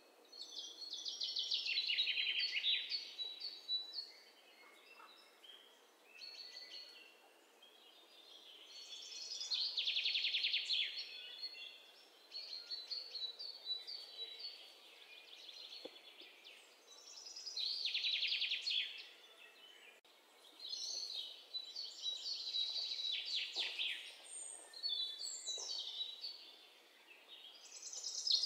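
Songbirds singing: bursts of rapid, high trilled chirping that rise and fade, returning every few seconds.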